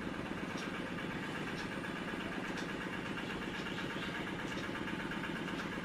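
Steady low mechanical hum of room background noise, with faint light ticks about once a second.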